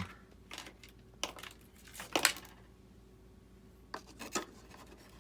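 Handling noises: a handful of short rustles and clicks as small parts are picked up and moved, the loudest about two seconds in and two smaller ones near four seconds.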